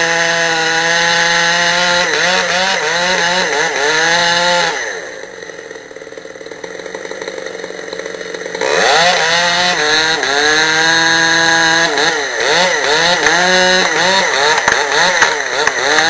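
Stihl 066 two-stroke chainsaw at full throttle in a felling cut through a large tree. Its pitch sags and recovers again and again as the chain bogs and clears in the wood. About five seconds in it drops back to a much quieter, slower run for about four seconds, then opens up to full throttle and keeps cutting with the same dips in pitch.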